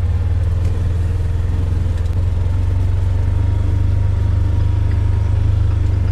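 Side-by-side utility vehicle's engine running steadily as it drives along a wooded track, a deep even rumble with a fast regular pulse.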